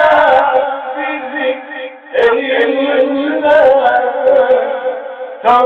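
A man reciting the Quran in melodic tajwid chant, holding long drawn-out notes, with short breaks about two seconds in and near the end.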